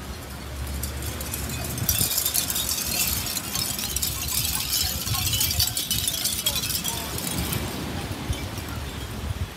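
Hanging wind chimes of shells and bamboo clinking and tinkling in the breeze, a dense high jingle that starts about two seconds in and dies away near the end, over a low rumble of wind on the microphone.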